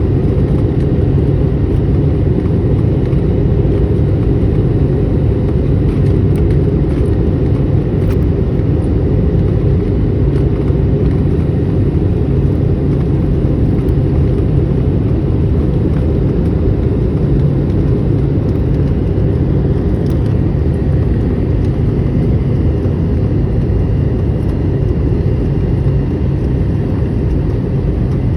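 Steady jet airliner cabin noise in flight: a constant low rumble of engines and rushing air, heard from inside the cabin, with faint steady engine tones above it.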